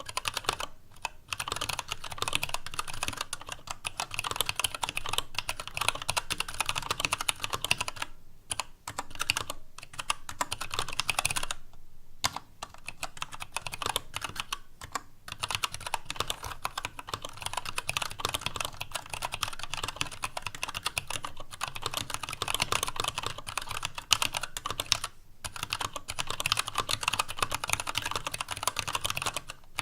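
TADA68 65% mechanical keyboard with Gateron Brown tactile switches, a stainless steel plate and PBT keycaps being typed on in a fast, continuous run of key clicks, with a few brief pauses. The keystrokes have a hollow sound from the empty space in the ABS case, and some desk noise comes through.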